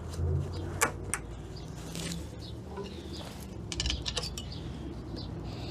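Scattered small metal clicks and taps of hand tools working a C-clip off the front hub of a 1994 Ford Ranger 4x4, with a dove cooing in the background.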